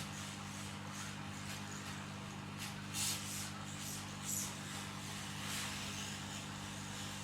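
Hot air rework station blowing on the phone board: a steady fan hum with an even hiss of air, while the processor is heated for soldering. A few brief, soft scratchy noises come about three and four seconds in.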